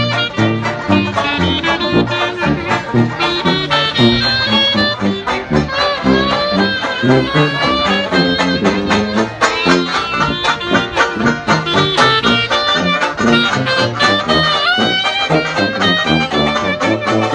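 Live traditional jazz band playing an upbeat swing tune: clarinet melody over a sousaphone bass line on a steady beat, with banjo rhythm.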